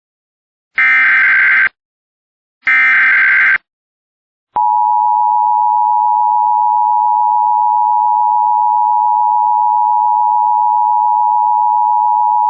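Two Emergency Alert System SAME header data bursts, harsh digital buzzes about a second each, then after a short pause the EAS two-tone attention signal sounding steadily for about eight seconds before cutting off.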